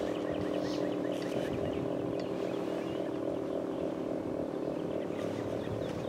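Federal Signal 3T22 three-tone electromechanical siren sounding a steady Alert signal, a chord of several tones held at constant pitch.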